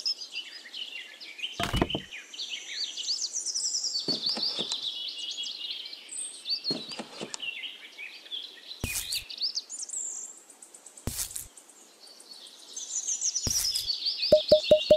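Small birds chirping and tweeting continuously, with a few short knocks scattered through. Near the end, a regular beat of repeated notes begins, about five a second.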